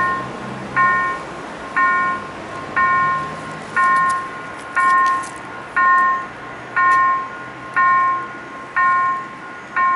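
Railway level-crossing warning bell striking steadily about once a second, each stroke a clear ring that fades before the next, warning of an approaching train as the barriers come down.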